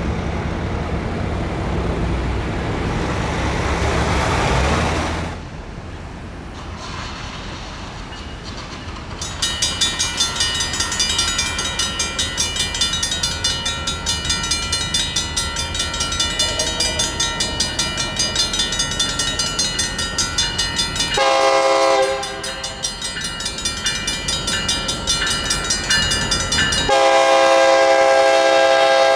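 A train rumbling past for about five seconds, cutting off suddenly. Then a railroad crossing bell starts ringing rapidly and keeps on, and a locomotive horn sounds a short blast about two-thirds of the way in and a long, loud blast near the end as the train approaches the crossing.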